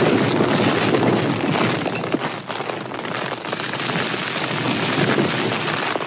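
Heavy rain and wind gusts hitting the fabric of a Cloud Peak 2 tent, heard from inside as a dense, crackling rush. It is loudest in the first second or so as a gust strikes.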